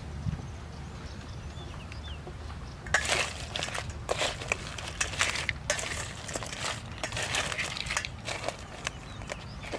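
Small crabs being handled in a stainless steel bowl: shells clicking and scraping against the metal and each other in a busy run of clicks that starts about three seconds in, over a steady low rumble.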